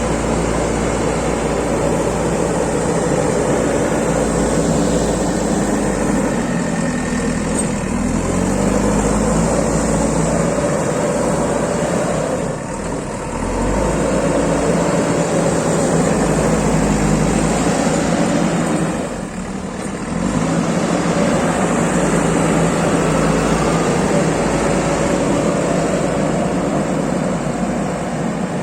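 JCB backhoe loader's diesel engine running while it digs, its low pitch shifting up and down. It eases off briefly twice, about halfway through and again about two-thirds of the way in.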